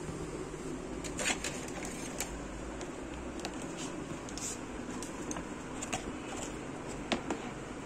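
Hard plastic toy parts clicking and knocking together as they are handled, irregular sharp clicks over a steady background hum.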